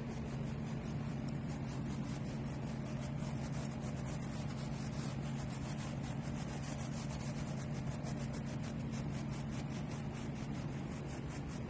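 A stiff brush rubbing over a painted canvas, burnishing gold leaf in quick repeated strokes, over a steady low hum.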